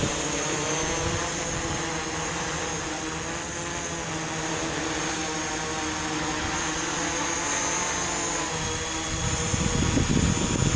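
FPV quadcopter's motors and propellers humming at a steady pitch with a high whine, as the drone holds altitude and position in a hover on its own. Low buffeting grows near the end.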